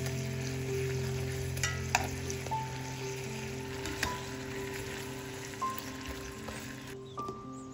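Food sizzling in hot oil in a frying pan as it is stirred, with a couple of sharp clicks of a utensil against the pan about two and four seconds in. Soft background music plays underneath.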